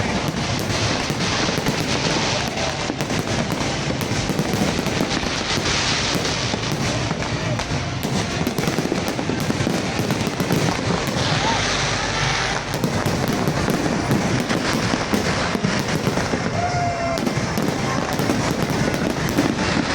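Fireworks display: a continuous, dense run of bangs and crackles, with a hissing burst a little past the middle.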